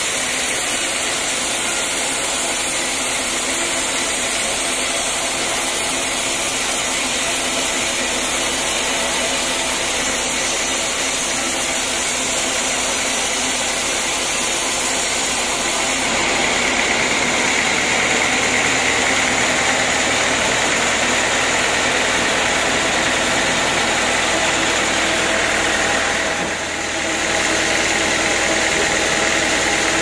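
Band sawmill running steadily as its blade saws lengthwise through a teak log. The tone gets brighter about halfway through, and the sound dips briefly near the end.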